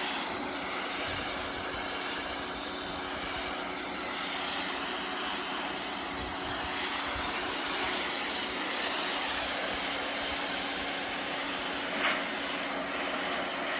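Pressure washer running, its water jet hissing steadily as it sprays brick to strip off green growth, over a steady motor hum.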